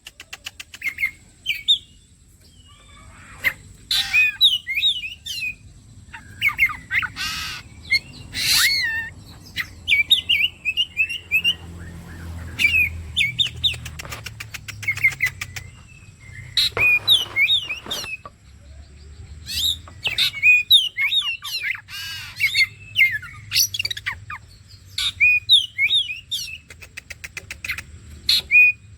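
Oriental magpie-robin (kacer) singing a continuous run of short, varied whistled phrases, broken a few times by harsher rasping notes.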